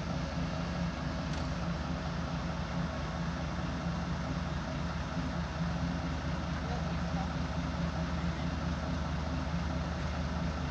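Excavator's diesel engine idling steadily, an even low hum that does not change.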